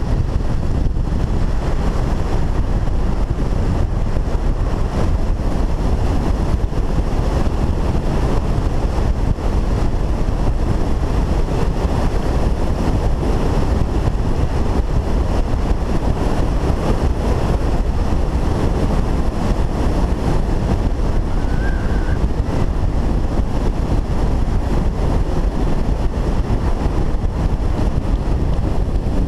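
Steady rush of wind on the microphone at downhill longboarding speed, mixed with longboard wheels rolling over asphalt. A brief faint high squeak shows about two-thirds of the way through.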